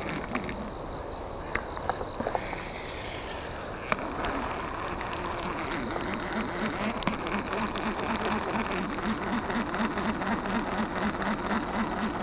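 Daiwa Millionaire ST-1000 baitcasting reel: the spool whirs briefly as line pays out on a cast, with a sharp click about four seconds in. From about five seconds in the handle is cranked steadily, the gears whirring in a quick pulsing rhythm with light ticking.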